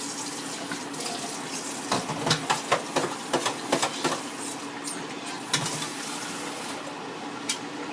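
Steady watery hiss from a pot on the stove, with a quick run of clinks and knocks of a spoon against the pot about two to four and a half seconds in, and a few more later.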